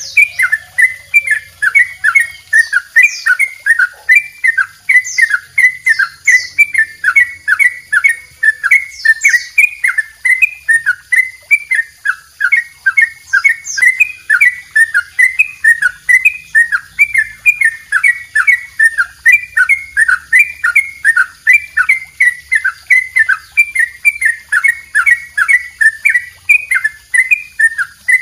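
Caged yellow-vented bulbul (trucukan) singing a long, unbroken run of short, quick, repeated notes, about three a second. This is the long double trill that bird keepers play to tutor other birds. A few higher, thinner chirps come in now and then during the first half.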